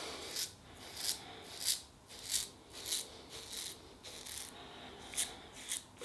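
Merkur Futur double-edge safety razor with a new Lord Platinum blade scraping through lathered stubble on the cheek in short strokes, about one every two-thirds of a second: a crisp rasp that sounds like buttering toast.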